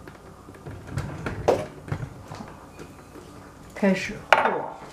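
A few light knocks and clatters of kitchenware on a tiled counter, then a short bit of voice near the end.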